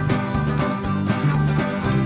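Upbeat instrumental background music with plucked strings in a bluegrass or country style.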